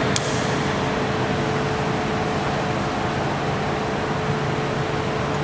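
Steady background hiss with a constant low hum, with one short click about a fifth of a second in.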